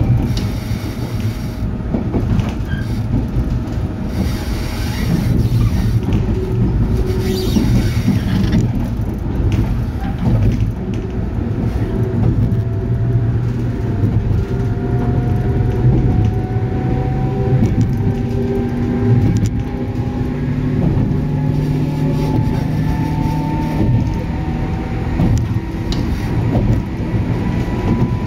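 A JR 103 series electric train's MT55A traction motors whining over a steady rumble of wheels on track. The motor tones rise slowly in pitch through the second half as the train gathers speed.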